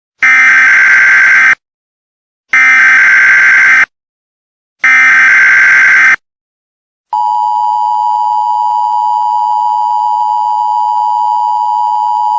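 Emergency Alert System header: three loud bursts of screeching SAME digital data, each about a second and a half long. About seven seconds in comes the steady two-tone EAS attention signal that announces an emergency alert.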